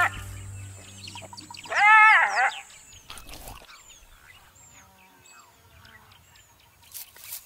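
Black-backed jackal giving one loud, drawn-out wailing yelp about two seconds in, rising then falling in pitch: an alarm call scolding a wild dog that has come near its pups' den. Faint high bird chirps follow.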